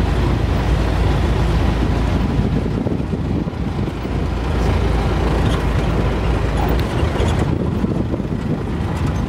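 Safari jeep driving slowly along a dirt track: a steady low rumble of engine and tyres.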